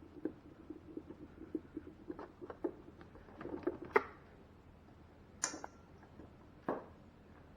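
Screwdriver driving screws back into the ice maker assembly: a run of small ticks and creaks, then a few sharper clicks and knocks, the loudest about four seconds in.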